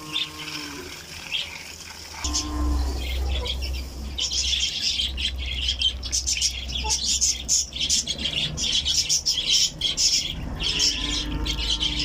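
Pet budgerigars chattering and squawking: a few drawn-out calls in the first seconds, then from about four seconds in a dense, busy run of short high chirps.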